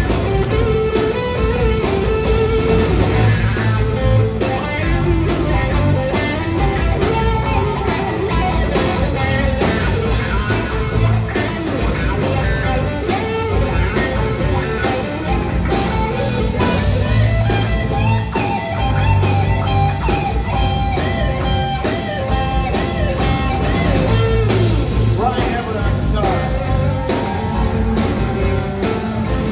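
Live band playing at concert volume: electric guitar out front over drums, bass and a horn section, with a steady beat.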